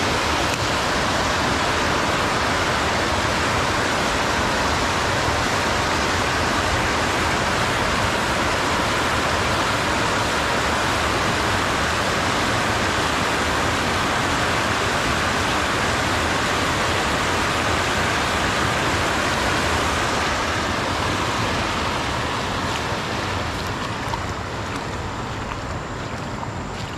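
Steady rush of river water pouring over a low weir, becoming a little quieter near the end.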